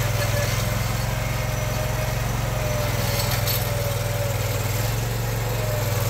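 Vermeer SPX25 vibratory plow's engine running steadily, a constant low hum with a faint steady whine above it.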